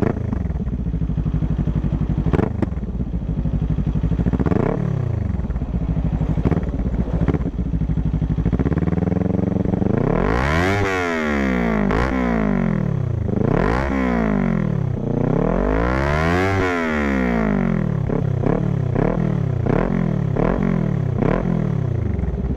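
Kawasaki Ninja 400's parallel-twin engine through an Orion slip-on exhaust with its dB killer fitted, revved while standing. It idles with a few short throttle blips, then gives a run of repeated revs rising and falling in the middle, and settles back to idle near the end.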